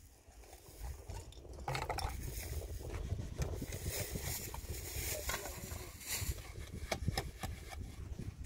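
Irregular clinks, scrapes and knocks of masonry work: a steel trowel working cement mortar and concrete blocks being set in place, over a steady low rumble.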